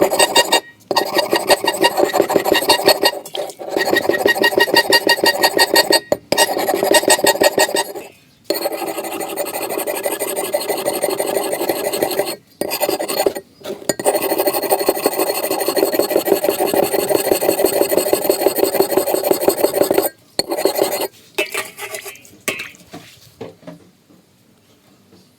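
Rapid back-and-forth rasping strokes of hand abrading work, an abrasive being worked over the axe, in runs of a few seconds broken by brief pauses, then tapering off near the end.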